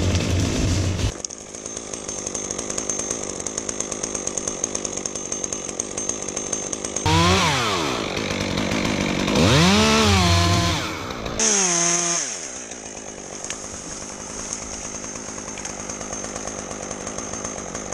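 Stihl chainsaw running at high speed, then dropping to idle about a second in. About seven seconds in it is revved up and down three times, two long revs and a short one, then settles back to a steady idle.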